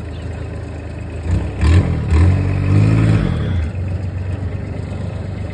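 Side-by-side UTV engine idling, then revved up a little over a second in, held for about two seconds and let back down to idle.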